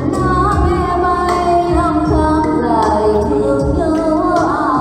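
A woman singing karaoke into a handheld microphone over a backing track with a steady beat, played loud through a home karaoke mixer, power amplifier and loudspeakers.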